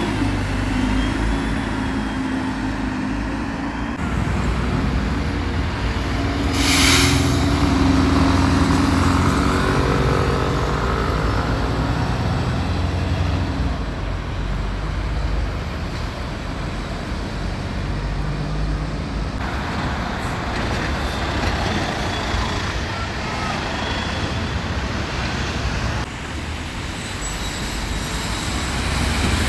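Red London buses running and moving along a busy road in passing traffic, their engines rumbling, with a short hiss of released air about seven seconds in.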